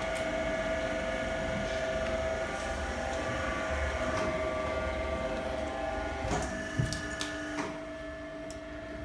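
Electric motor of a large HDPE pipe butt fusion machine's facing tool running with a steady whine, a few knocks about six and a half to seven and a half seconds in.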